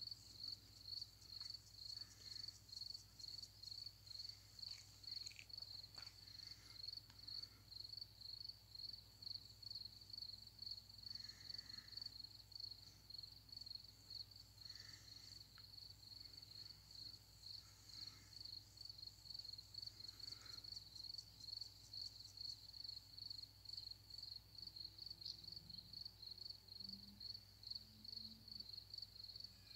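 A cricket chirping, faint and high, in an unbroken even pulse of a few chirps a second.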